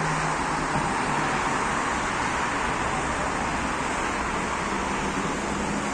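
Heavy rain falling, a steady even hiss with a faint low hum underneath.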